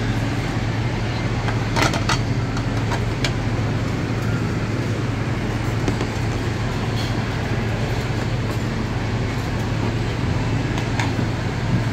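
Steady background din of a restaurant dining room with a loud low machine hum under it, and a few sharp clicks about two seconds in and again near the end.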